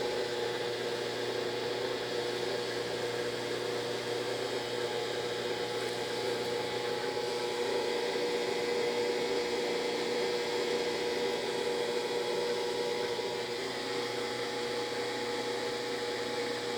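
Brastemp BWG11AB washing machine stalled mid-programme, giving a steady mechanical hum with a strong droning tone instead of going on to spin: the machine locks up and makes what the owner calls a horrible noise.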